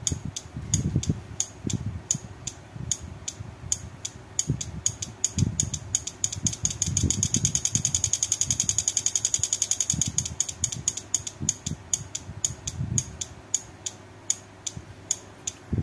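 12 V 30 A six-pin automotive relay clicking on and off over and over as an NE555 timer module switches it, a few clicks a second. Around the middle the clicks speed up into a fast chatter and then slow again as the timer's potentiometer is turned.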